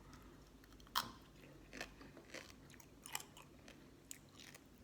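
Close-up chewing of a mouthful of green mango salad and pickled sea crab: irregular short crunches, the loudest about a second in.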